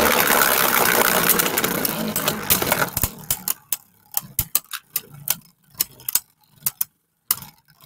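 Beyblade Burst tops spinning and clashing in a plastic stadium: a dense rattling for about three seconds, then separate sharp clicks as they strike each other.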